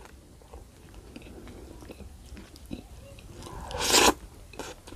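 Close-miked eating by hand: faint wet mouth clicks while rice is gathered with the fingers, then a louder wet mouth sound about half a second long as the fingers carry a mouthful of rice into the mouth, about four seconds in.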